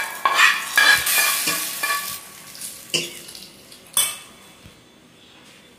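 Hot tempering of mustard seeds, dried red chillies and curry leaves being scraped with a steel spoon from a pan into a bowl of coconut milk and grated mango, sizzling as it hits the liquid. Metal spoon scraping and clinking against the pan, with a sharp clink near four seconds, after which it dies away.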